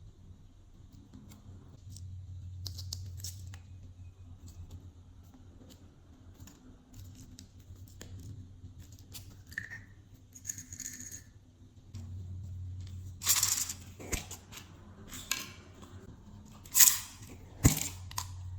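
Glossy slime being mixed and squished by hand: scattered sticky clicks and crackly pops, with a few louder crackling bursts near the end, over a low steady hum.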